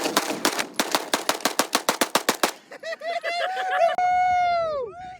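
Rapid string of gunshots, about eight a second for two and a half seconds. It is followed by a drawn-out high-pitched call that wavers, holds steady and then slides down near the end.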